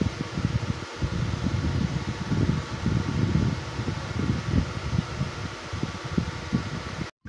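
Steady whirring air noise with an uneven, gusty low rumble. It drops out completely for a split second near the end.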